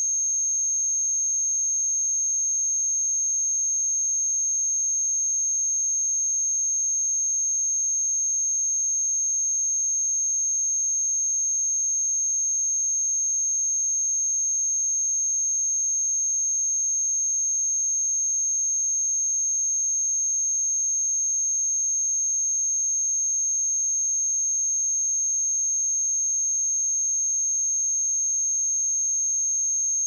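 A pure 6424 Hz sine-wave test tone: one steady, unchanging high-pitched whistle.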